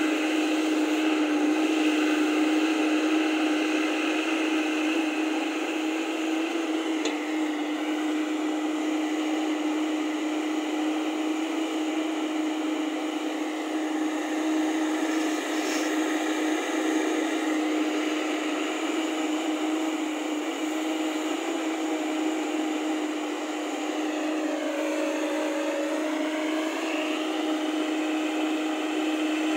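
A JCB tracked excavator's diesel engine runs steadily as its hydraulics work the boom and bucket digging soil. A whine in the hum shifts in pitch, dipping and rising again about three quarters of the way through.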